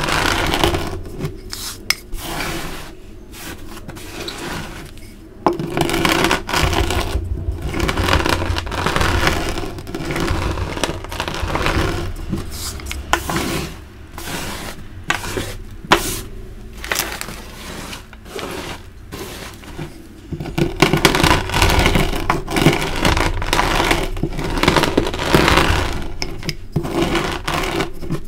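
Crushed dyed gym chalk crunching and grinding under a rolling pin and fingers: crisp scraping crackle in long strokes that swell and ease, with the odd sharp crack as pieces break.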